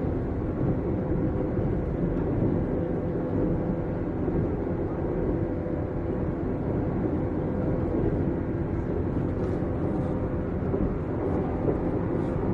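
Running noise heard aboard a 455-series express-type electric multiple unit cruising along the line: a steady rumble of wheels on rail with a constant hum underneath.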